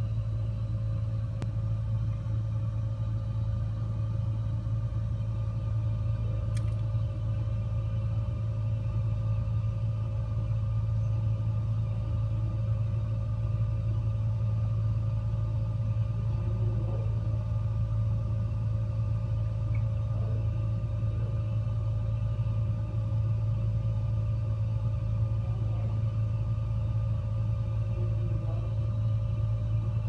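Gas fireplace burning: a steady low rumble with a faint even hum, and one short click about six and a half seconds in.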